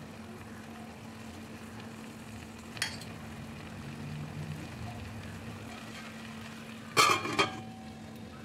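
Eggs and onion masala frying in a pan, a steady sizzle over a low hum. About seven seconds in, a steel lid clatters onto the pan and rings briefly.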